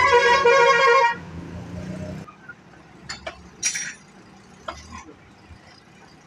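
A vehicle horn sounds once, a steady tone for about a second, over a low rumble that stops about two seconds in. A few sharp clicks and a brief hiss follow.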